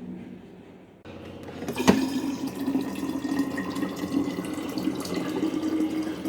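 Water running from a kitchen tap into a sink, with a sharp knock about two seconds in.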